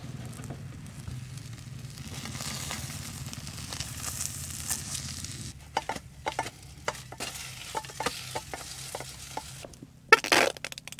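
Eggs frying and sizzling in a pan. Partway through, a string of sharp clicks and taps of a utensil on the pan takes over, with a louder short scrape near the end.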